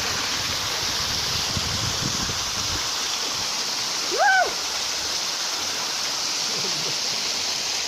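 Waterfall pouring steadily, a constant rush of falling water. About halfway through, a short rising-and-falling call from a voice rises above it.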